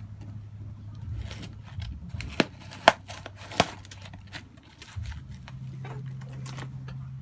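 Packaging being handled and opened: light rustling and crinkling with three sharp clicks or snaps in the middle, over a steady low hum that steps up in pitch about five seconds in.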